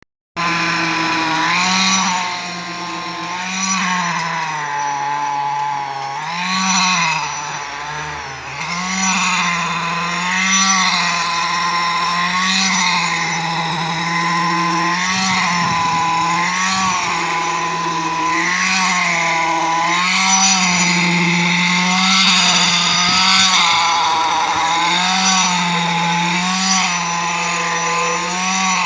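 Concrete vibrator running steadily during a slab pour. Its pitch keeps dropping and recovering every second or two, as the needle is worked into and out of the wet concrete.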